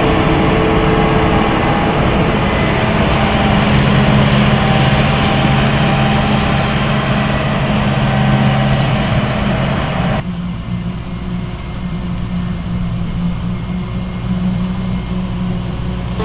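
Heavy farm machinery at a maize harvest, a forage harvester and tractors, running steadily with a deep engine drone under a loud rushing noise. The rushing noise cuts off abruptly about ten seconds in, leaving the lower engine hum.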